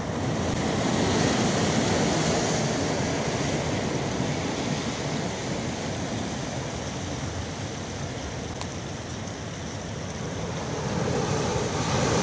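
Sea surf washing onto a rocky shore: a steady rushing noise that swells about a second in and again near the end as waves come in, with some wind on the microphone.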